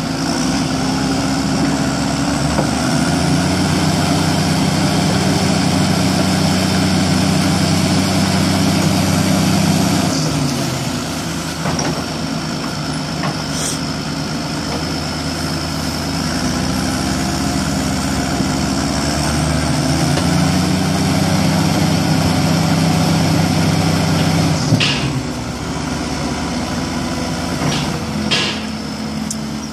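Diesel engines of a Caterpillar excavator and backhoe loader working in deep mud. The engine note rises and holds for several seconds, twice, over a steady high whine. Two short hissing bursts come near the end.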